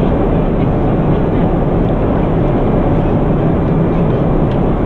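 Steady roar of an airliner cabin in flight: engine and airflow noise, even and unbroken.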